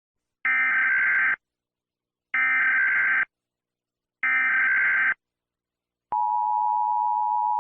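Emergency Alert System tones. Three identical bursts of the SAME digital data header, each about a second long and spaced about a second apart, followed by the steady two-tone EAS attention signal, which begins about six seconds in.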